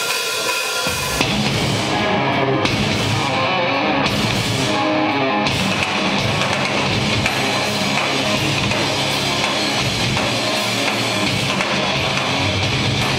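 Pop-punk band playing live: electric guitars, bass and a drum kit, with the full band coming in about a second in.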